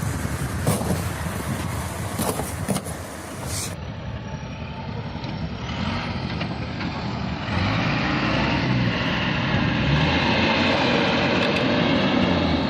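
A few knocks over noise, then, after a cut, a motor vehicle's engine running steadily and getting louder at about seven and a half seconds in.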